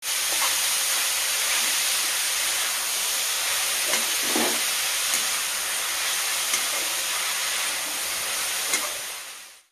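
Grated bottle gourd sizzling as it fries in ghee in an aluminium kadhai, a steady hiss. A metal spoon scrapes and clicks against the pan now and then as it is stirred. The sizzle fades out near the end.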